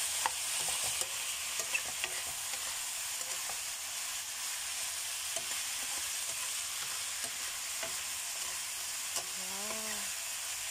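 Tempe, green beans and petai sizzling as they are stir-fried in a wok, with a metal spatula scraping and tapping against the pan now and then.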